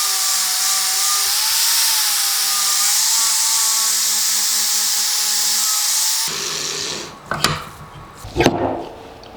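A handheld power tool runs on metal, with a steady hiss and a slightly wavering motor whine. It cuts off about six seconds in, followed by two sharp knocks.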